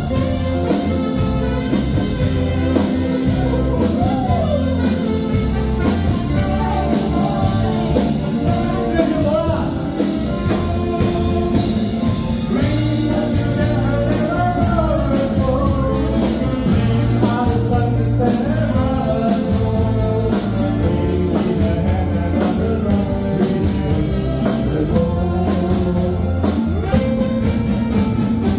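Live band playing an oldies pop song: electric guitars, bass and drum kit keeping a steady beat, with a sung melody over it.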